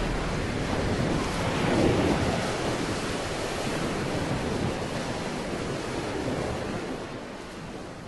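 A rushing wash of noise like surf, swelling about two seconds in and then slowly fading out.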